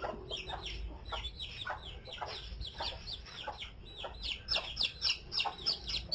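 A young chick peeping over and over, each peep a short, high, falling note, about three or four a second. The peeps grow louder after about four seconds.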